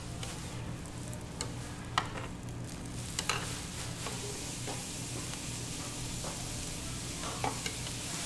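Beaten egg sizzling in a large rectangular pan while two plastic spatulas scrape under and roll up the omelette's edge, with a few sharp clicks of spatula against pan, over a steady low hum.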